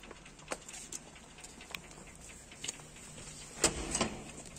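Scattered light clicks and taps from metal door latches and doors being handled, with two louder clanks about three and a half seconds in as a metal bolt latch on a door is worked.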